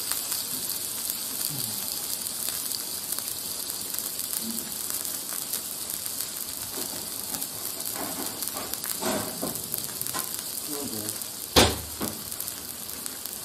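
Marinated sliced beef and mushrooms sizzling steadily on a domed metal grill plate over a camp stove. A single sharp knock near the end.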